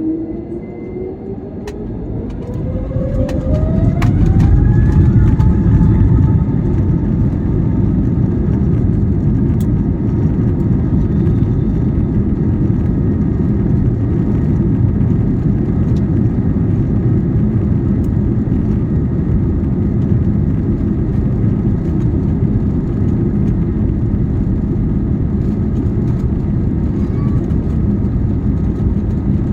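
Airliner engines spooling up to takeoff thrust: a rising whine over the first four or five seconds, then a steady loud rumble through the takeoff roll, heard from inside the cabin.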